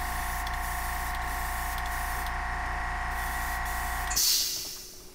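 Small piston air compressor feeding an airbrush, running with a steady hum, then cutting out abruptly about four seconds in, followed by a short hiss of air.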